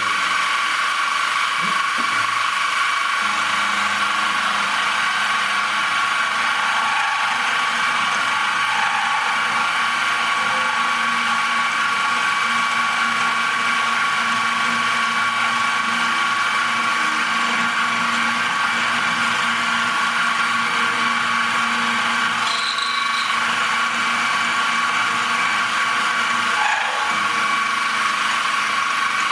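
Metalworking machine tool running steadily with a constant high whine while it takes the last cut.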